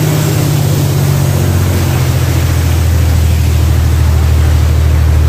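Jet boat's engine running steadily under way, a loud low drone with a rushing hiss of water and air over it.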